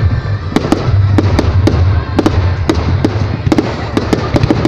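Fireworks going off: a rapid, irregular run of sharp bangs and crackles, about three a second, over a continuous low rumble.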